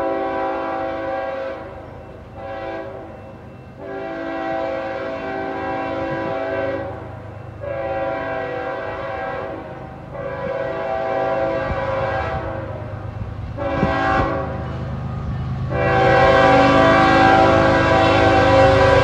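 Diesel freight locomotive's air horn sounding a series of blasts, mostly long with a couple of short ones between. The last long blast is the loudest, with a low locomotive rumble growing beneath it as the train draws near.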